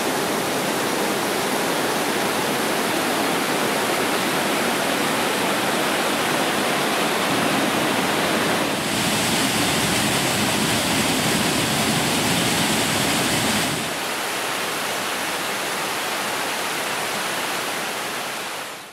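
Steady rush of falling water. Its tone changes suddenly twice, about nine and fourteen seconds in, and is hissier in the middle part.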